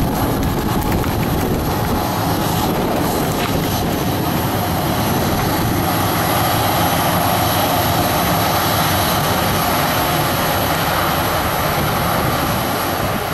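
Boeing 737-500's CFM56 turbofan engines running steadily as the jet taxis.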